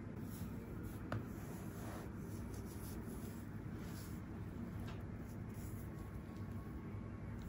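Quiet scratchy rubbing of nylon-socked feet against each other and the upholstered couch, over a low steady rumble, with one sharp click about a second in.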